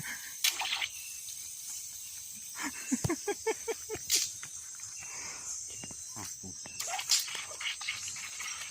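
Water hose or pipe giving short squeaky chirps and clicks, with a quick run of squeaks about three seconds in. This is the strange night-time noise that turned out to come from the water line rather than an animal.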